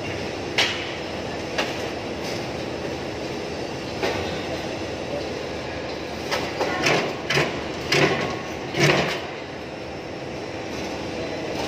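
Metallic knocks and clanks from handling a sheet-metal air duct section and duct lift, heard over steady background noise. A few single knocks come early, then a busier run of louder clanks falls between about six and nine seconds in.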